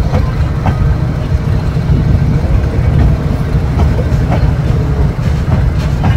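Metre-gauge passenger coaches rolling slowly past on the adjacent track: a steady low rumble with a few faint clicks and knocks scattered through it.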